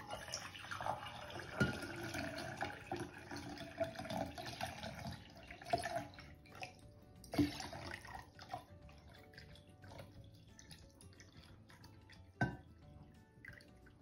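Water pouring from a glass pitcher into a tall glass vase and splashing as it fills, louder for the first half and then a thinner, quieter stream. A few light knocks come through the pour.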